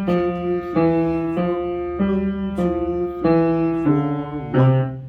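Piano keyboard playing a simple beginner melody one note at a time, roughly a note every half second, each note held until the next, over a steady low hum.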